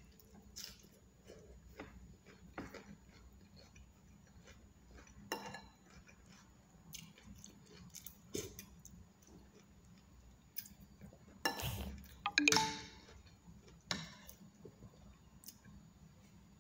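A person eating rice and chicken sinigang with a spoon: soft chewing and mouth sounds, with scattered light clinks of a spoon on a plate. A louder stretch of mouth noise comes about twelve seconds in.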